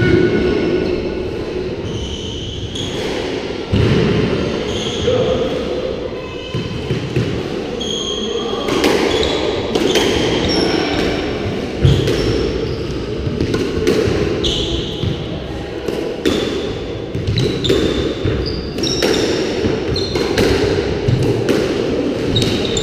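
Squash rally: the ball is struck by rackets and smacks against the court walls again and again, with brief high squeaks from shoes on the wooden floor. The hits come thicker from about a third of the way in.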